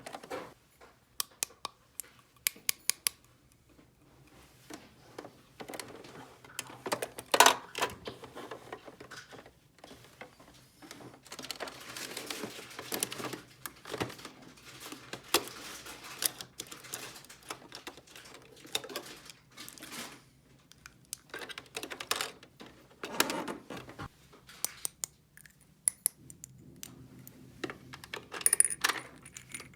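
Small plastic toy pieces from a miniature cash register and refrigerator play set being handled: a string of light clicks, taps and knocks, with softer rustling in between.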